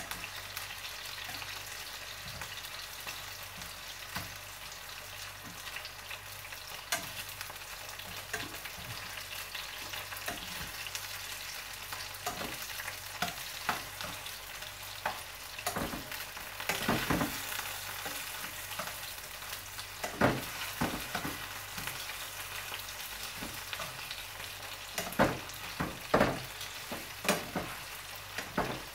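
Cubes of beef brisket sizzling steadily as they brown in oil in a frying pan, with metal tongs clicking against the pan as the pieces are turned one by one. The clicks come more often and louder in the second half.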